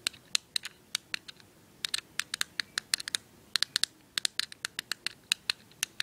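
Fidget cube's five-button face being pressed: a quick, irregular run of sharp plastic clicks, with a short pause a little after a second in.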